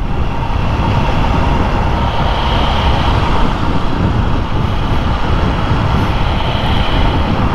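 Steady noise of a motorcycle under way: wind rushing past the rider, with the engine running underneath.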